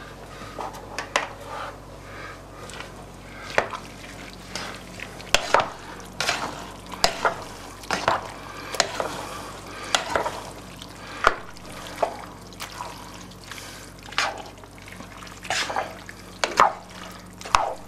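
A cooking spoon stirring a thick, chunky vegetable soup in a large pot: irregular scrapes and knocks of the spoon against the pot, more than a dozen, spread unevenly throughout.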